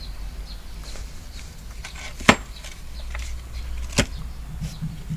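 Two sharp knocks about a second and a half apart, the first the louder, as a metal hydraulic safety valve block is turned over and set down on a table top, with a few faint ticks of handling and a low steady hum underneath.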